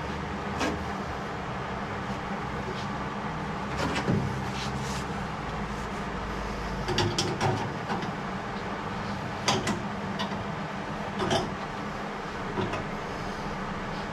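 Steady low hum with about nine short clicks and knocks scattered through it, a few of them louder, around a third and two-thirds of the way in.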